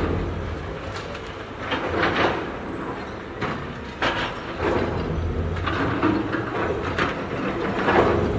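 Heavy demolition machinery running with a steady low rumble, with irregular clanking and crashing bursts every second or two as it breaks up a building.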